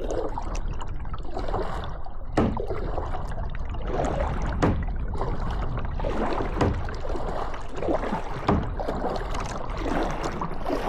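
Water rushing steadily around a kayak on a river, with a few sharp knocks scattered through.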